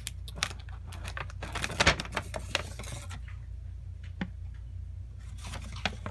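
Scattered light clicks, taps and rustles of paper and cardboard being handled, a box and its printed insert sheet, over a steady low hum.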